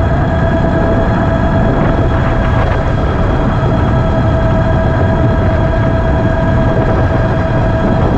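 Ariel Rider X-Class e-bike's electric motor holding a steady whine at cruising speed, under a heavy rush of wind on the microphone.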